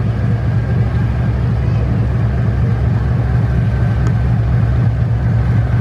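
Large passenger catamaran's diesel engines running at low speed, a steady deep rumble with a rapid throb as the vessel manoeuvres toward the quay, with a faint steady high whine over it.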